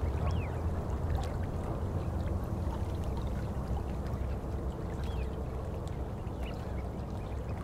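Low, steady rumbling of wind on the microphone over open ground, with a few faint high chirps scattered through it.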